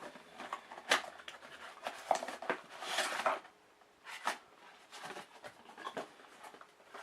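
A box being cut open with scissors: scattered snips, clicks and rustles of packaging, with a longer rustle about three seconds in.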